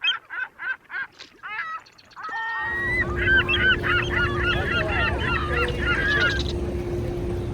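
Geese honking: first a quick run of about a dozen honks, then, from about two and a half seconds in, many overlapping honks over a steady background hum, stopping about a second before the end.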